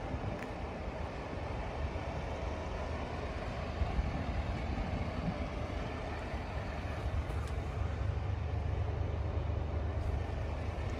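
Scania R440 truck's diesel engine idling with a steady low hum, growing a little louder in the second half.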